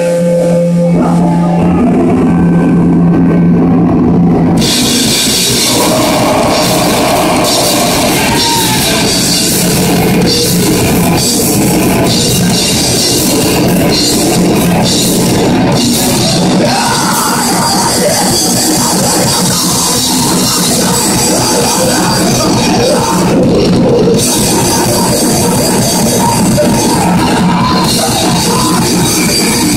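Live metal band playing loud. For the first few seconds a single low note is held, then about four and a half seconds in the full band comes in with fast, dense drumming and cymbals under distorted guitars and bass, and keeps going.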